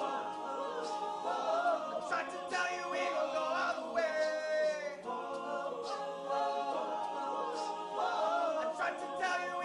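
Several voices singing a cappella in harmony, with long held notes.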